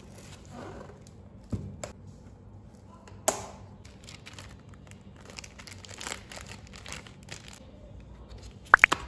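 Handling sounds from unboxing a rigid cardboard gift box: paper and cloth rustling and crinkling, broken by sharp taps and knocks of card and box. The loudest are a sharp click about a third of the way in and a pair of clicks near the end.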